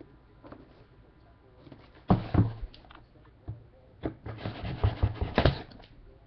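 A cardboard trading-card box being ripped open by hand. After a quiet start there is a sharp burst of tearing about two seconds in, then a longer run of tearing and scraping of cardboard and packaging from about four seconds in.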